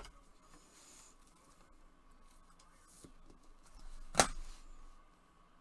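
Trading cards being handled with gloved hands: faint rustling under a faint steady hum, then one sharp snap about four seconds in as a card is moved quickly.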